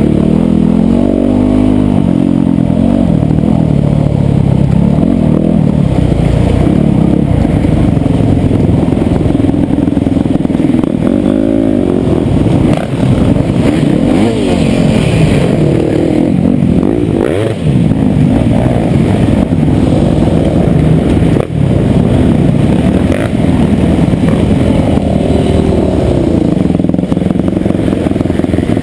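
Yamaha YZ250FX four-stroke single-cylinder dirt bike engine under way, revving up and down with throttle and gear changes so its pitch keeps rising and falling. The throttle briefly closes a few times near the middle.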